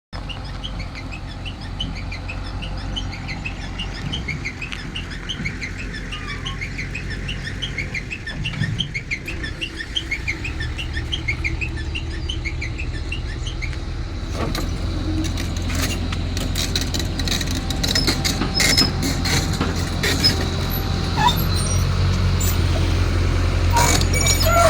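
An excavator's diesel engine running steadily, growing a little louder toward the end, with birds chirping over it for the first half. From about halfway on, scattered sharp knocks and clatter join in.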